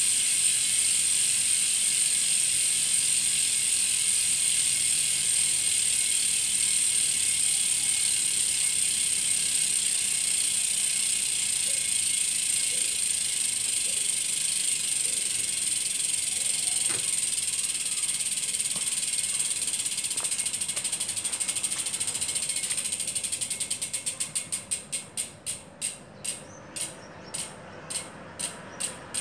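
The freehub of an AMP Prime 45C rear wheel buzzing as the wheel coasts freely, its pawls clicking so fast that the ticks run together. About 23 seconds in the wheel slows: the buzz fades and the clicks come apart, swelling and falling in a pulse about twice a second.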